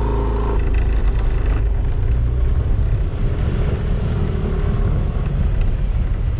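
Motorcycle engine running steadily under way, with wind rumbling on the microphone.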